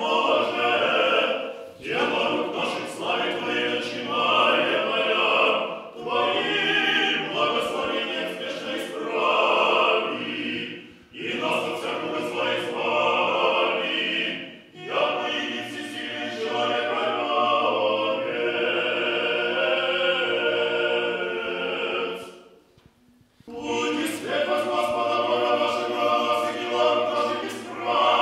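Small group of church singers chanting Orthodox liturgical music unaccompanied, in sung phrases with short breaths between them. A brief pause comes about three-quarters of the way through before the singing resumes.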